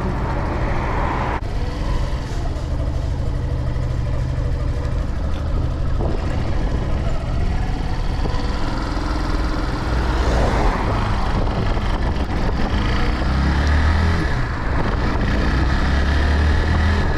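Yamaha YS125's single-cylinder four-stroke engine running, freshly serviced, with a brief rise in pitch about ten seconds in and a heavier low note near the end.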